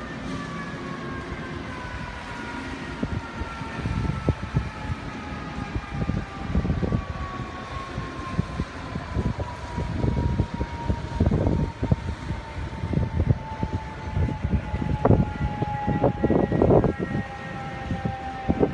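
A siren tone winding slowly down in pitch over many seconds, over low, gusty rumbling that grows stronger toward the end.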